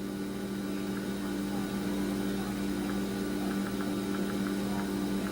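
Steady electrical hum, with a few faint short ticks about two thirds of the way through.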